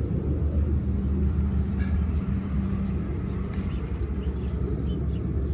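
A steady low motor drone, even in pitch and level, with a few faint scraping sounds over it.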